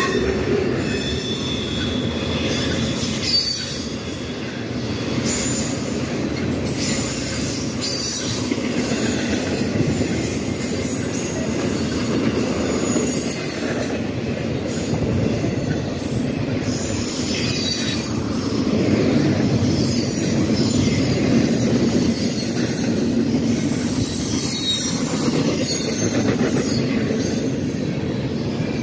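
Intermodal freight train of trailer-carrying flatcars rolling past close by: a steady rumble and clatter of wheels on the rails, with short high-pitched wheel squeals coming and going.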